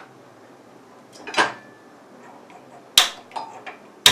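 Frying pan being set on the stove: a few sharp metallic knocks, one about a second and a half in and a louder one at three seconds, followed by small clinks.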